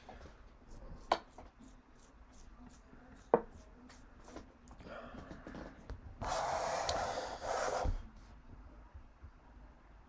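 Two short wooden clicks, about two seconds apart, from a chess app playing pieces onto the board. Near the end comes a rush of noise lasting about a second and a half.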